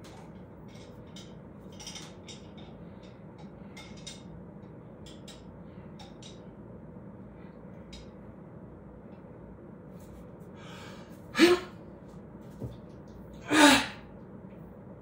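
Two loud, sharp breaths about two seconds apart near the end: a lifter bracing with forceful breaths for a maximal squeeze of a gripmeter. Before them, faint light clicks of the hand gripmeter being handled and set.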